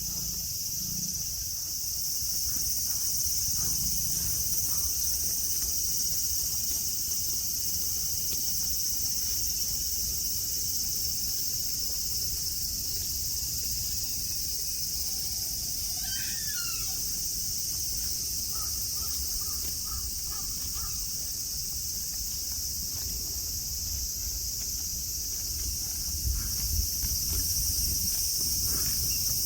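Cicadas singing in a steady, high-pitched chorus, with a few short bird calls about halfway through.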